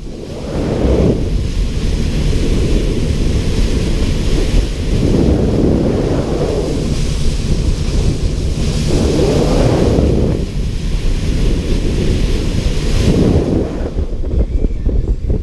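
Motor boat running at speed on open water: a steady low engine rumble and rushing water under heavy wind buffeting on the microphone, which swells up every few seconds.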